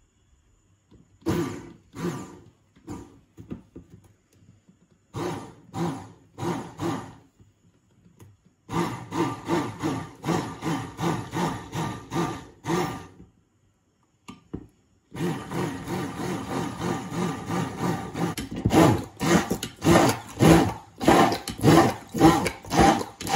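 Hand-held immersion blender running in a glass bowl, emulsifying oil with egg into mayonnaise. It starts in a few short pulses, then runs in two long stretches, its sound swelling and falling about twice a second as the blade head is worked through the mix.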